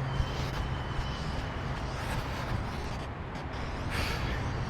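A person running shuttles on concrete, faint footfalls under a steady rushing noise and low hum.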